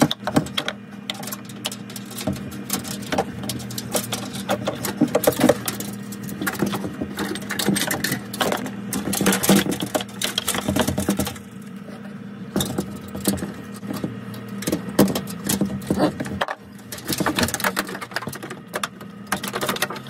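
Rapid, irregular clicking and clattering of hands working on the evaporator and defrost heater parts inside a refrigerator's freezer compartment, over a steady low hum.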